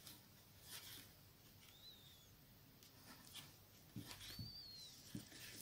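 Near silence: faint rustling of yarn being worked with a crochet hook, with two faint high chirps, about two seconds in and again near the end.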